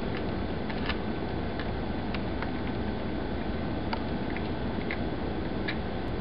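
Kittens crunching peanuts: irregular sharp little cracks, about a dozen spread over the few seconds, over a steady rushing background noise.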